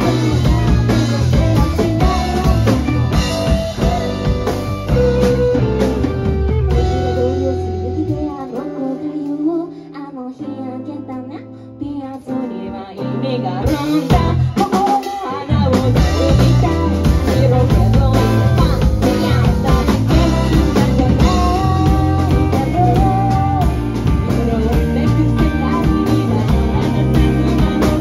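Live rock band playing: electric guitars, bass guitar and drum kit, with singing. About eight seconds in the bass and drums drop out for a quieter break, and the full band comes back in about halfway through.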